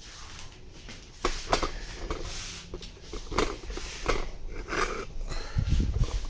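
Irregular scuffs, clicks and rustles of footsteps and handling as a person walks across a wooden floor carrying a handheld camera, with a few low thumps shortly before the end.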